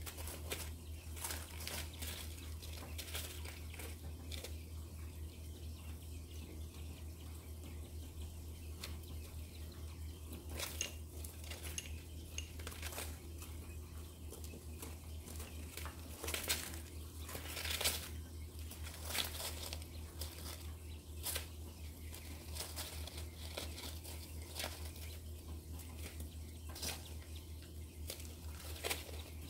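White mini quail (button quail) scratching and pecking in loose rice bedding and newspaper: scattered dry clicks and rustles, a few louder ones near the middle, over a steady low hum.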